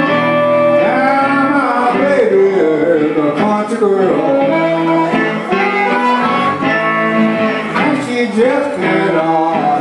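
Piedmont blues on guitar and harmonica, the harmonica's notes bending up and down over the guitar's steady picking.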